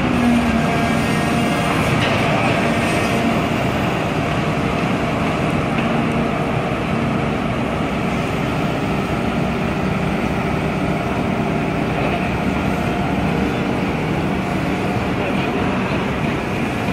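Volvo crawler excavator with a telescopic clamshell dipper arm running steadily, its diesel engine and hydraulics working as the telescoping arm hoists the bucket up out of the pit.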